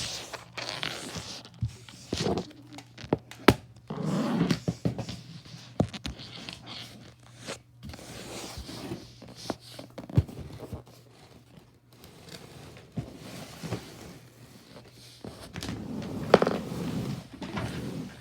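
Handling noise: scattered knocks and thunks with short bouts of rustling and scraping, over a faint steady hum.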